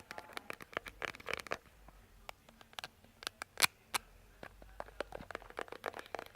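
Close, irregular tapping and scratching on an object: a quick run of small clicks and scrapes, with one louder tap about three and a half seconds in.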